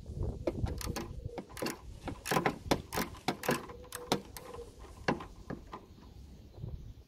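Small hand ratchet with an 8 mm socket clicking as it is worked back and forth on a headlight mounting bolt. The clicks come unevenly, quickest in the middle and thinning out near the end.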